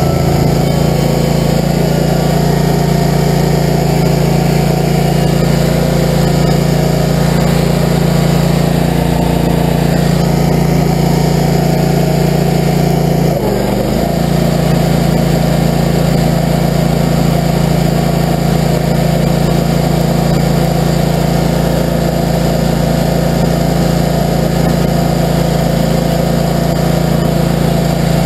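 Barreto tracked stump grinder's engine running steadily as the machine drives on its rubber tracks, with a brief hitch about halfway through.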